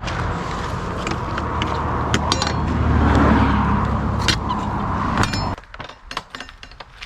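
A motor vehicle passing on a road, its engine and tyres rumbling and hissing, loudest about three seconds in, with a few metallic clinks. It cuts off abruptly after about five and a half seconds, leaving quieter footsteps.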